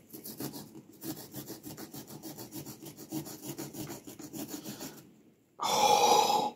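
A small, cheap serrated pumpkin-carving saw sawing back and forth through the rind around a pumpkin's stem in quick, even strokes. The sawing stops about five seconds in. Just before the end there is a short, loud vocal sound.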